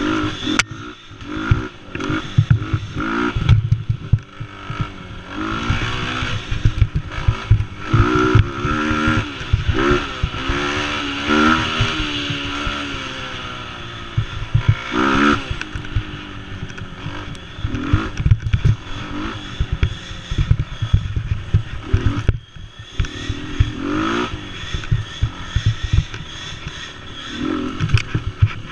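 Mini quad's small engine revving up and down over and over as it is ridden hard along a rough trail, with clatter and knocks from the bumps.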